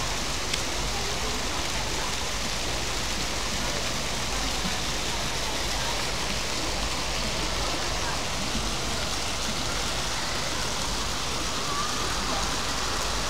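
Steady rush and splash of water from a swimming pool's jets or cascade, a constant hiss with no breaks.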